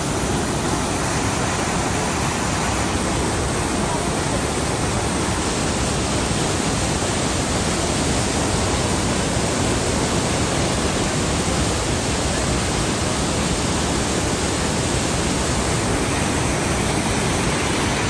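The Rhine Falls, Europe's most powerful waterfall, heard close up: a huge volume of water pouring over the rocks and crashing into the pool below, a loud, steady rushing that spreads over every pitch.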